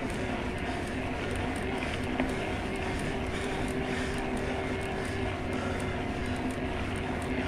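Specialized Turbo Levo e-mountain bike's mid-drive motor whining steadily under pedal assist. Several held tones sit over a low rumble of wind and tyres on the path.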